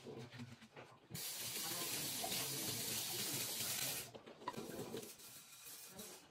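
Kitchen sink tap running in a steady hiss for about three seconds, turned on about a second in and off about four seconds in, with small clinks and knocks of dishes being handled before and after.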